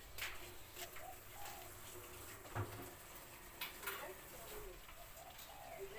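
Birds calling with short, low, wavering calls, repeated several times, with a few light knocks in between.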